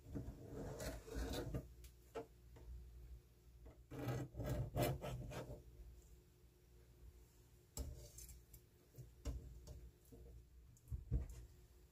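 Handling noises during kitchen food preparation: rubbing and scraping with light knocks. Two spells of rubbing, one at the start and one around four to five seconds in, are followed by scattered single clicks and taps.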